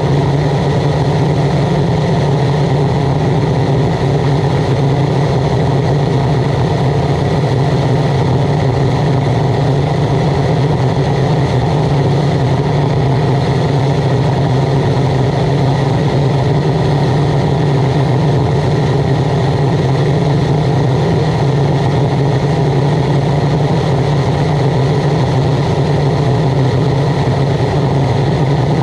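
Waste oil burner running steadily under a pan of water: its blower and flame make a constant noise with a strong low hum, unchanging throughout.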